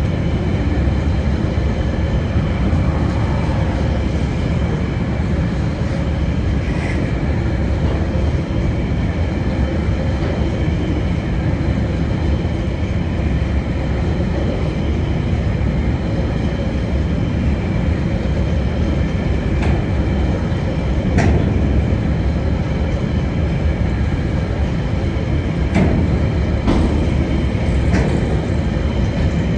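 Freight wagons, loaded coal hoppers and container flats, rolling steadily past over a level crossing: a continuous rumble of steel wheels on rail. A few sharp clicks come through near the end.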